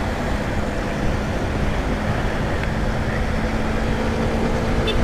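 Honda CBR150R motorcycle being ridden at a steady pace: a steady engine hum under heavy wind rush on the microphone.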